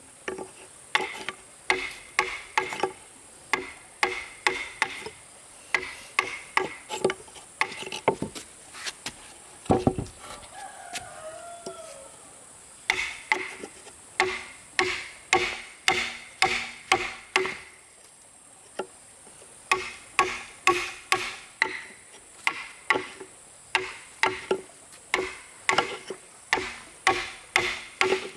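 A hand tool striking wood over and over in runs of about two blows a second, each blow sharp with a short ring, pausing twice along the way.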